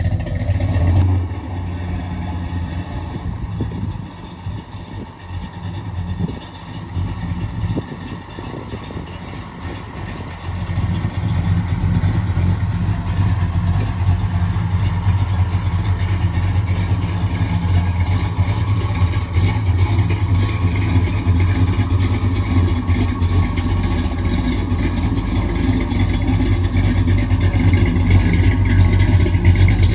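1968 Pontiac GTO's V8 engine running, quieter for a few seconds, then louder and steady from about ten seconds in.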